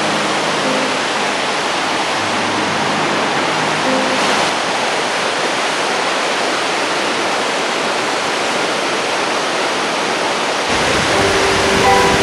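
Steady rushing hiss of water pouring over a dam spillway and falling down a rock-face waterfall. About eleven seconds in, a deeper rumble joins. Soft background music with sustained notes plays faintly underneath.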